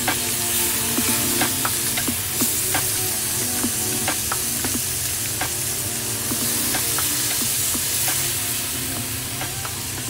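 Chicken pieces and onion sizzling steadily in oil in a metal wok, with irregular scrapes and taps of a spatula against the pan as they are stirred.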